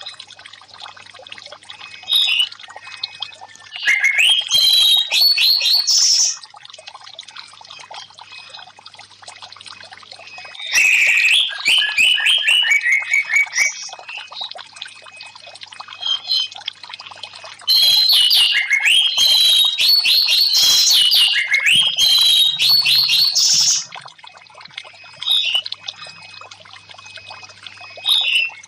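Orange-headed thrush (anis merah) singing in loud bouts of rapid whistled and chattering notes, one bout running down in a falling series, with short calls between the bouts. Steady trickling water runs underneath.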